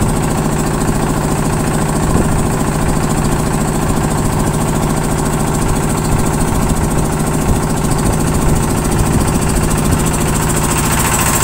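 An engine aboard a bagang lift-net fishing boat running steadily at an even speed, a constant hum with a fast low pulse beneath it.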